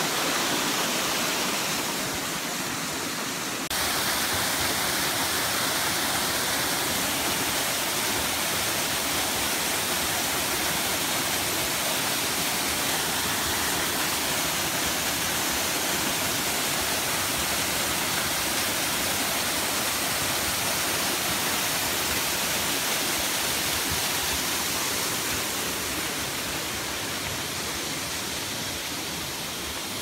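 Steady rush of a small waterfall plunging into a pool: a continuous hiss of falling water with no breaks, stepping up a little in level about four seconds in.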